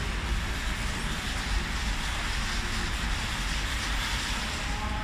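Steady low rumble with an even hiss from workshop machinery, with no clicks or strokes and no machine cycle heard.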